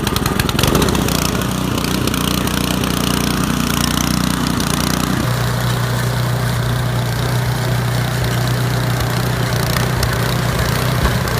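Snowblower's small gas engine running steadily just after being pull-started, on its first test run after a drive belt replacement. About five seconds in its note changes and settles into a steady hum.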